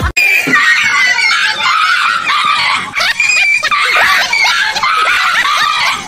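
Frightened dog yelping and screaming in panic, high-pitched wavering cries one after another, as it flees from a toy tiger.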